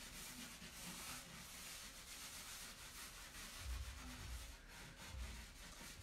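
Faint, steady rubbing of glaze being worked over a wooden box and wiped back, with a couple of soft low bumps partway through.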